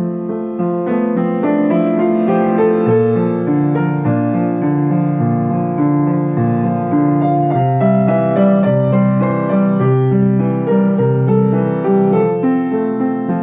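Grand piano played solo: a melody over chords, with repeated notes in the lower register from about two-thirds of the way through.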